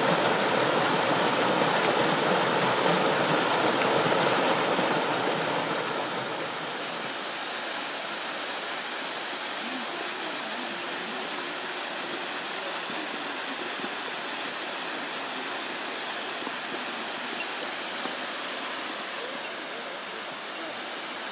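Waterfall and mountain stream rushing in a steady roar of water, which drops noticeably in level about five seconds in.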